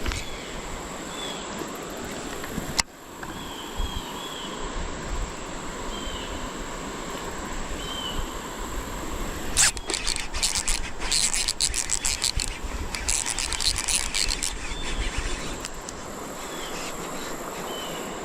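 Creek water running steadily, with short bird chirps, and from about ten seconds in a stretch of rapid crackling and clicking for about five seconds.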